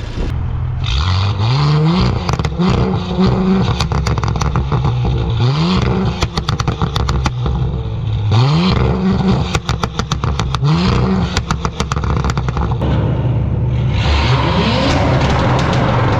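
Audi S4's 3.0 L turbocharged V6 revved in short blips, about five times, through a catless downpipe with secondary cat and resonator deleted. Each blip is followed by a run of rapid exhaust pops and crackles on the overrun, set up by the custom tune.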